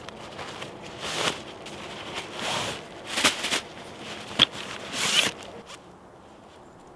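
A zip being pulled in several short, uneven strokes, with a sharp click about four and a half seconds in.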